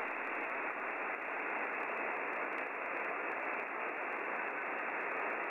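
Steady shortwave band noise, a hiss heard through the narrow voice passband of a WebSDR receiver tuned to the 40-metre amateur band. It fills the gap between two stations' transmissions while no one is on the frequency.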